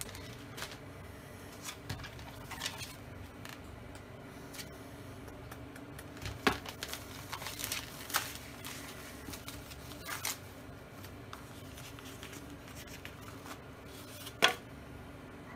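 Plastic cling wrap crinkling and tearing as it is peeled off a foam meat tray, with scattered taps and clicks of the tray being handled; a sharp tap comes near the end. A steady low hum lies underneath.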